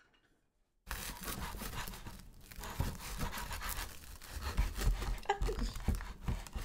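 Serrated bread knife sawing back and forth through a crisp, grill-pressed panini on a wooden cutting board, crunching through the toasted crust, starting suddenly about a second in.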